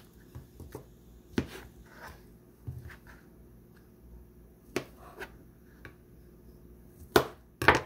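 A chef's knife cutting through small brown mushrooms and knocking down onto a thin plastic cutting board, with quieter handling sounds as the stems are pulled off. A few separate sharp knocks, the loudest two close together near the end.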